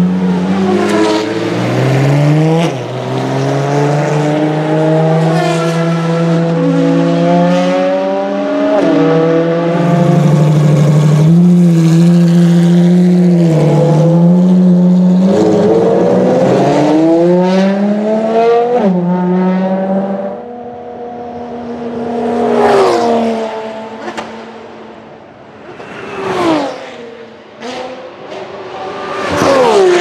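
Ferrari XX Programme track cars' V12 engines running at low revs in the pit lane, several at once, their note stepping up and down as they rev and move off. Later come three fast passes, each rising then falling sharply in pitch.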